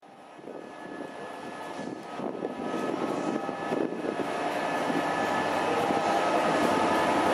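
Diesel locomotive approaching, its engine drone growing steadily louder.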